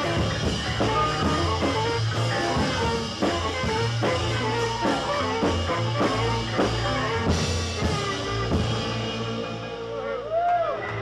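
Small jazz quartet playing Quelbe jazz, with alto saxophone, bass, piano and drum kit: a busy melody line over steady bass notes and drum hits. Near the end come a few short swooping notes that rise and fall.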